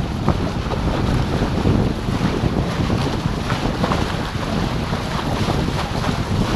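Wind buffeting the action camera's microphone over the steady rush and splash of water along the hulls of an F-24 trimaran sailing upwind at about eight knots.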